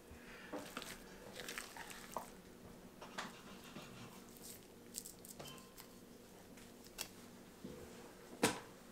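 Boning knife slicing and trimming raw elk meat on a wooden cutting board: faint soft, wet cutting sounds with small clicks, and a sharp knock near the end.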